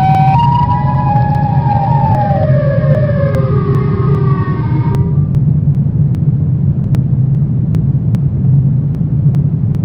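Dark horror ambience: a steady low rumbling drone with a pitched tone above it. The tone steps and then slides downward over the first five seconds and fades out, over faint scattered clicks.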